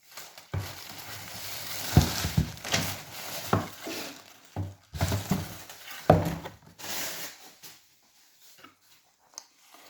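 Handling noise close to the microphone: rustling and rubbing with low bumps, and sharp knocks about two, three and a half and six seconds in, as the unboxed shoes and their packaging are handled. It dies down to a few faint taps in the last few seconds.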